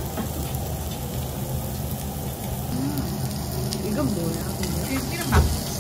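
Beef sizzling on a tabletop grill, a steady hiss, with faint voices behind it and a brief louder knock near the end.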